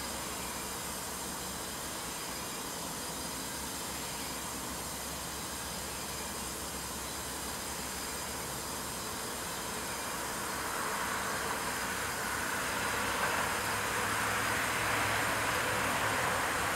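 Steady background hiss that grows gradually louder over the last several seconds.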